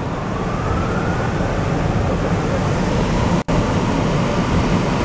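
Water spray from an automatic drive-through car wash drumming on the windshield and windows, heard from inside the car as a loud, steady rush, with a faint rising whine in the first two seconds. The sound breaks off for an instant about three and a half seconds in.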